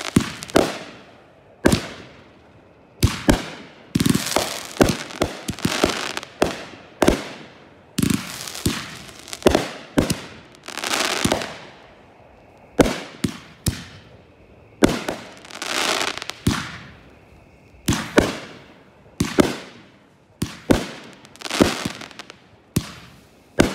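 Consumer fireworks cake firing a rapid barrage: sharp launch-and-burst bangs about once a second, some followed by a longer hissing crackle of falling stars.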